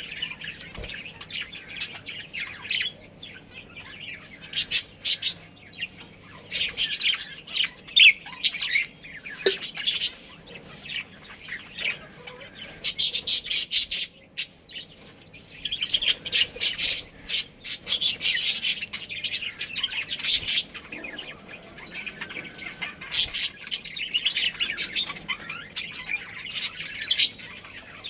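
A budgerigar colony chirping and chattering, many birds at once, with louder bursts of a few seconds and brief lulls between them.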